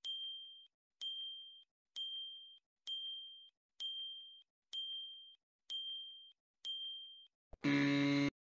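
Countdown timer sound effect: a short, bright electronic ding about once a second, eight times, each fading quickly as the count ticks up. Near the end a louder, lower sustained tone sounds for just over half a second as the count reaches ten, marking time up.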